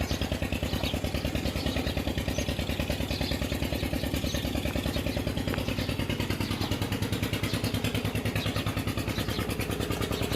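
A small engine running steadily with an even, rapid pulsing beat.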